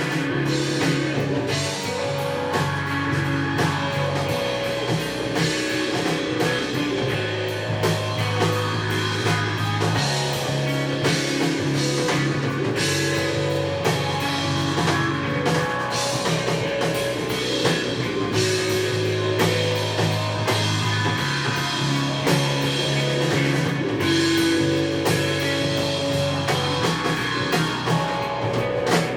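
Live rock band playing an instrumental passage: guitar over sustained bass notes that change every few seconds, with a steady drum kit.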